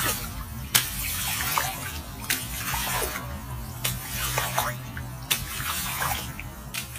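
Water splashing and sloshing as bare feet step through shallow water, with scattered sharp drips and plops over a steady low hum.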